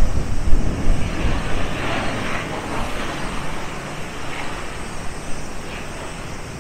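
Gusting wind buffeting the microphone, heaviest in the first second or so, over waves washing ashore.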